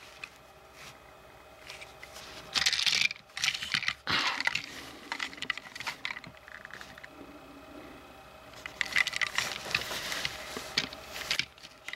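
Plastic TrackMaster Nia toy engines being handled: irregular clicks, rattles and scrapes as they are picked up, turned around and set down on carpet, in three flurries with the busiest near the end.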